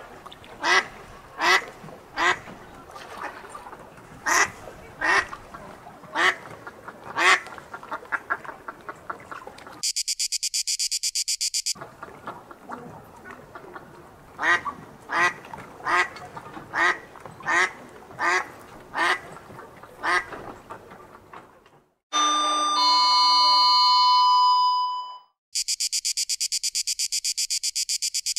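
A duck quacking, a series of short sharp quacks about one to two a second, broken about ten seconds in by a fast, high-pitched pulsing sound. A few seconds of several steady tones held together follow the second run of quacks, and then the fast high pulsing returns near the end.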